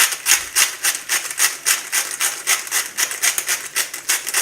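Salt going onto raw chicken leg pieces: a regular run of quick scratchy strokes, about four or five a second, that stops near the end.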